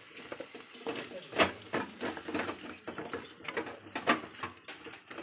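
Wooden spatula stirring thick masala in a metal pot: irregular scraping and knocking against the pot, with a few sharper knocks about a second and a half in and again about four seconds in.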